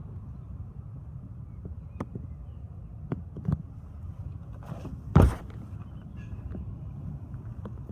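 Handling noise from a handheld camera: a steady low rumble with a few small clicks, and one loud short knock about five seconds in.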